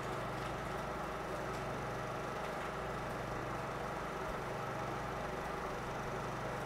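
Steady mechanical hum and hiss of a 16mm film projector running, with a low drone underneath.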